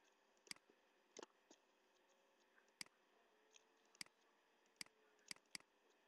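Computer mouse clicking: about seven sharp single clicks at irregular intervals, against near silence.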